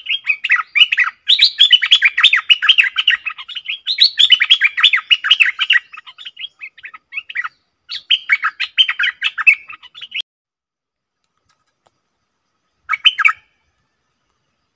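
Stripe-throated bulbul singing: long runs of quick, bubbly chirping notes, going quiet about ten seconds in, with one short burst near the end.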